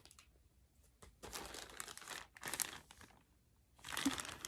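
Packaging crinkling and rustling as a horse fly bonnet is handled and unwrapped, in irregular bursts starting about a second in, with a short quiet gap before a last burst near the end.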